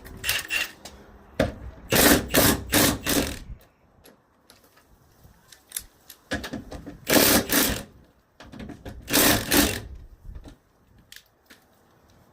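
A power tool run in four short bursts, its rapid rattling strokes loudest about two, seven and nine seconds in, working on the truck door's hinge bolts during alignment.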